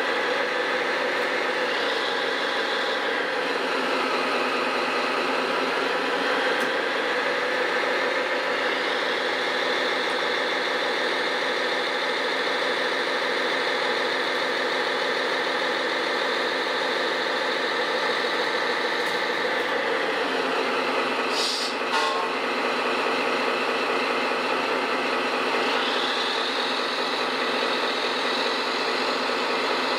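Radio-controlled model construction machines running: a steady engine-like drone with a whine that rises in pitch a few times, and a couple of sharp clicks about two-thirds of the way through.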